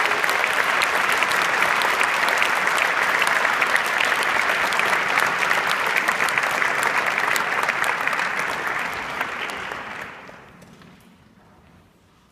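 Audience applauding, a dense steady clapping that dies away about ten seconds in.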